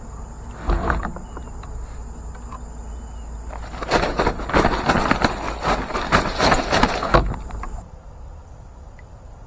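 Insects trilling steadily in the background, with a dense run of knocks and splashes for about three seconds midway as a kayak paddle is handled.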